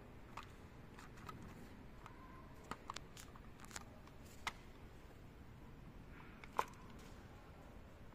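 Sparse light clicks and taps of fuel pump parts being handled and fitted together, about six in all, the sharpest about four and a half and six and a half seconds in.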